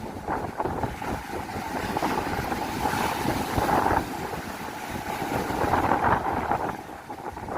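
Wind buffeting the microphone over the noise of the sea.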